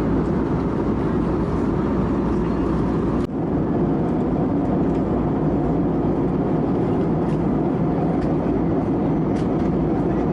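Steady cabin noise of an Airbus A320neo in flight: an even, low rush of airflow and engine noise, with a brief dip about three seconds in.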